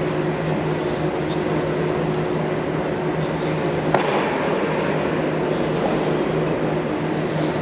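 Steady hum and noise of a large sports hall, with a single sharp knock about four seconds in.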